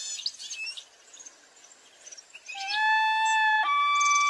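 Birds chirping briefly, then a long, steady held tone that steps up to a higher pitch about halfway through and keeps sounding.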